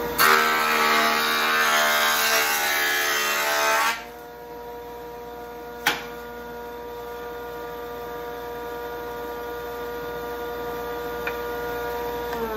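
Jointer running with a steady whine while a fruitwood board is fed across its cutterhead for about the first four seconds, a loud shaving cut that straightens the board. A single sharp knock about six seconds in. Near the end the jointer is switched off and its whine starts falling in pitch as the motor spins down.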